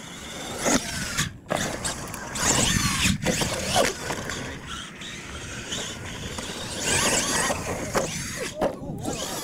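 Radio-controlled monster truck's motor and gears whining, rising and falling in pitch with the throttle.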